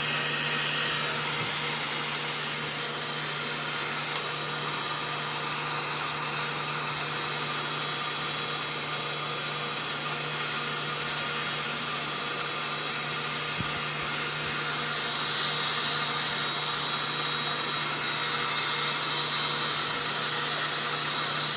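Heat gun running steadily with an even fan rush and a low hum, heating adhesive-lined heat-shrink tubing over a crimped cable lug until the adhesive melts.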